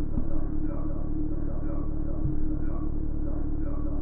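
Electronic soundtrack music: a steady low drone with a short falling figure repeating about once a second.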